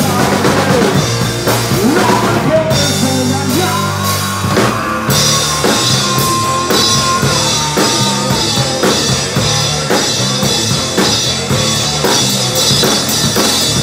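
Rock band playing live: a drum kit with steady beats and cymbals under amplified electric guitars. A guitar holds one long high note from about four to seven seconds in.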